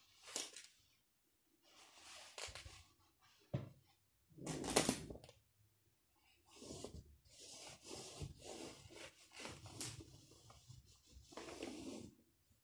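Pleated paper blind rustling and crinkling in a series of short bursts as hands press it flat against the window frame, with the loudest crinkle about five seconds in.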